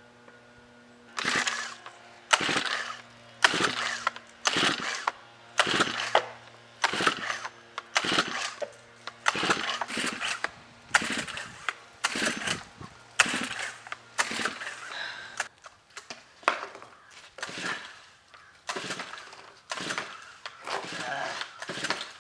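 Recoil starter of a gas-powered string trimmer being pulled over and over, about once a second, each pull a short rasp of the cord whipping out and the engine turning over. The engine never catches between pulls: a hard-starting trimmer that will not fire.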